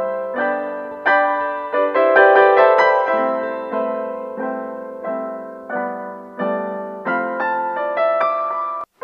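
Background piano music: gentle notes and chords struck every half-second or so, each fading away, with a very brief break near the end.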